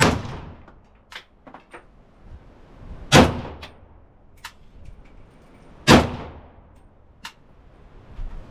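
Arsenal AK-47-pattern rifle in 7.62×39mm firing three single shots about three seconds apart: one right at the start, one about three seconds in and one near six seconds. Each crack rings briefly under the range roof. Fainter clicks and knocks come between the shots.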